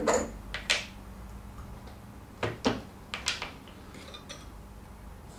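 Metal parts of a Lewmar Ocean winch clinking and knocking as they are handled during strip-down. The centre spindle is drawn out of the drum and set down on the bench, giving a handful of separate sharp clicks and knocks over the first three and a half seconds.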